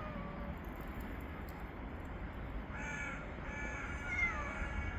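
Several short, harsh bird calls from about two and a half seconds in, over a low steady background rumble. At the very start, a cat's falling meow trails off.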